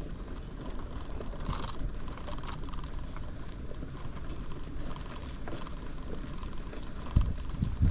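A bicycle ridden over a rough path: a steady rumble of tyres and rattling of the bike, with two heavier thumps near the end.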